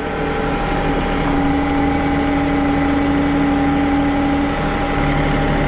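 John Deere compact tractor's diesel engine running steadily, with a steady whine from about a second in until near the end as the front loader raises the bucket off the ground.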